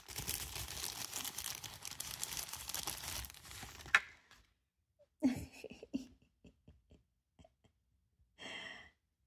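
Thin clear plastic bag crinkling and rustling as a small vinyl figure is drawn out of it. The crinkling ends about four seconds in with a sharp click, followed by a few light clicks and a soft breathy sigh near the end.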